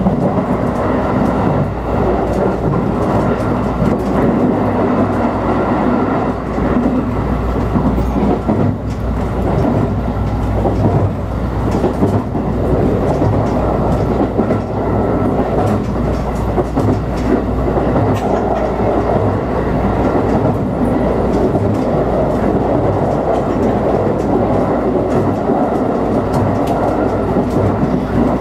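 Electric multiple-unit passenger train running at speed, heard from inside the carriage: a steady rumble of wheels on rail with the clickety-clack of the wheels passing over rail joints.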